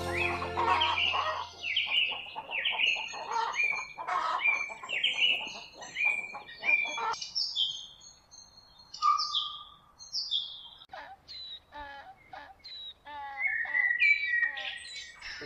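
Recorded birdsong: a quick run of falling chirps for about the first seven seconds, then scattered high whistles and short trilled calls.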